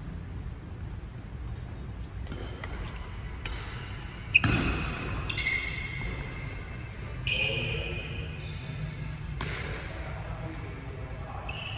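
Badminton rally: rackets striking a shuttlecock about half a dozen times, the sharpest crack about four seconds in, with shoes squeaking on the court floor between shots. A steady low hum runs underneath.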